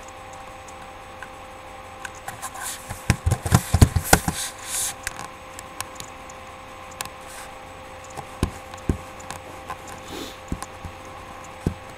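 Handling noises: a flurry of sharp knocks, clicks and rustles about three to five seconds in, then scattered single clicks, over a steady hum.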